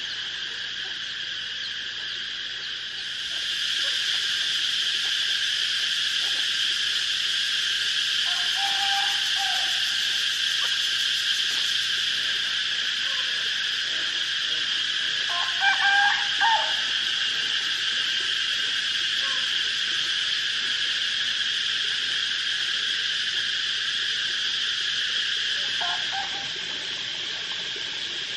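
Steady, high-pitched insect chorus, louder from a few seconds in until near the end. A few short calls stand out over it, the loudest about halfway through.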